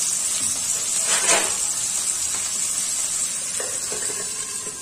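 Sliced potatoes frying in hot mustard oil in a kadai, a steady high sizzle throughout. A short scrape comes about a second in, and light metal knocks near the end as the pan is covered with a steel lid.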